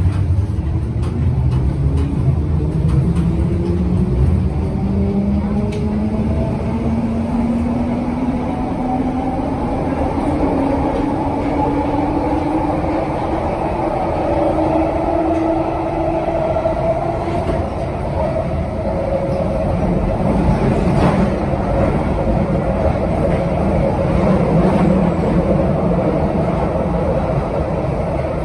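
London Underground 1972 Stock train on the Bakerloo line accelerating, its motor whine rising slowly in pitch for about fifteen seconds over a steady running rumble, then levelling off as the train runs on at speed.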